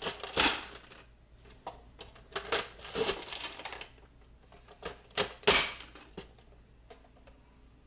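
Plastic push-down vegetable chopper pressed shut on onion pieces again and again, forcing them through its grid blade: a handful of sharp clacks and crunches at uneven intervals, the loudest about five and a half seconds in.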